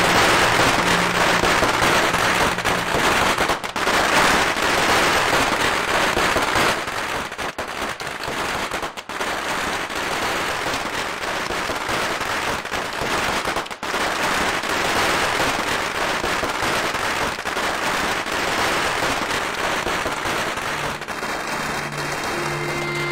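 A long string of firecrackers going off in a dense, continuous crackle, loudest for the first seven seconds or so and then a little softer.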